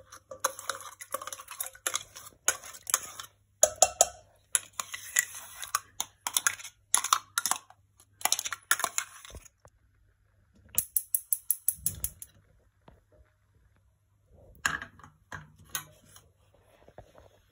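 Steel spoon scraping and clinking against a steel container as thick vegetable purée is scraped out, with a quick run of rapid taps about eleven seconds in and a few lighter clinks near the end.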